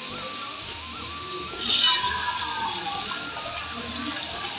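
Soft background music with a simple stepping melody; a little under two seconds in, water runs from a kitchen tap for about a second and a half, then trails off.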